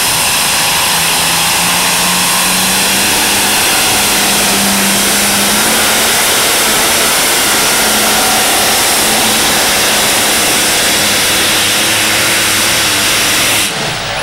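Modified 3.5-tonne free-class pulling tractor at full throttle, dragging the weight sled down the pulling track: a loud, steady engine note that climbs slightly, dropping off sharply near the end.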